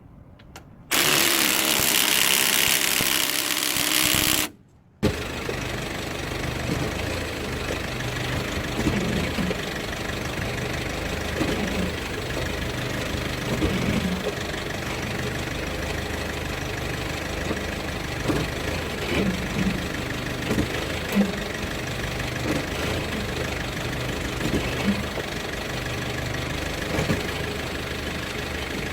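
SsangYong Korando Sports pickup's engine running steadily at idle, with scattered short knocks over the hum. Near the start there are a few seconds of loud rushing noise, then a cut.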